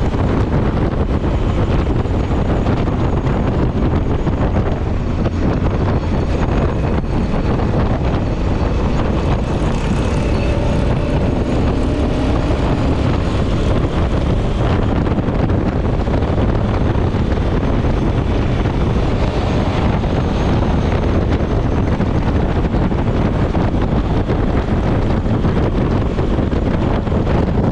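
Steady wind rush on the microphone of a motorcycle cruising at about 60 mph, with engine and road noise underneath.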